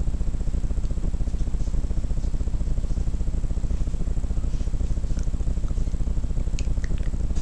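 A steady low buzzing hum with a fast, even flutter, engine-like in character, with a few faint clicks in the second half.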